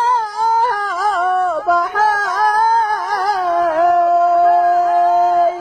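A man singing an Arabic folk song unaccompanied, on a wordless vowel in a high register. His line is ornamented with quick turns and wavers, then settles about two-thirds in on one long held note.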